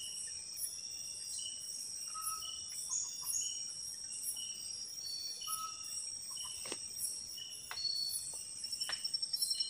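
Night-time forest insect chorus: crickets and other insects trilling steadily at a high pitch, with short repeated chirps over it. There are a few faint clicks in the second half.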